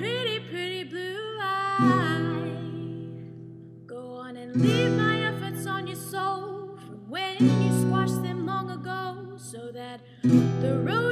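A woman singing a slow blues song over acoustic guitar, a strummed chord struck and left ringing about every three seconds.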